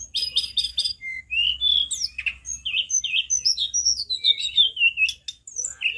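Hill blue flycatcher in full, loud song: a fast, varied run of high, clear whistles mixing quick repeated chips with sliding notes, and a falling string of notes past the middle.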